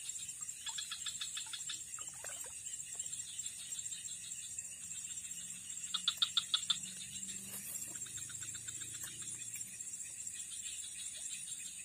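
Insects and frogs calling: a steady high-pitched insect buzz under repeated rapid pulsed trills, the loudest trill about six seconds in.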